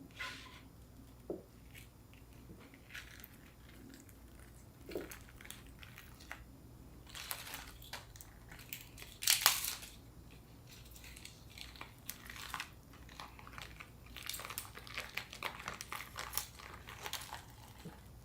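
Faint table-side food handling: scattered crinkles, rustles and light crunchy clicks. The loudest is a brief crunchy rustle about nine seconds in, and there is a busier patch of crackling near the end.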